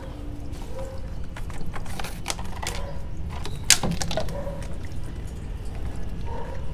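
Handling noise from a plastic sediment-filter housing being gripped and worked: several sharp knocks and clicks, the loudest about four seconds in, over a steady low rumble.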